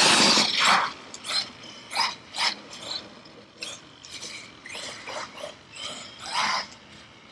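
Traxxas Sledge RC truck driven in short throttle bursts on a wet dirt track, its drivetrain and spinning tyres giving about eight gritty whirring bursts, the loudest in the first second.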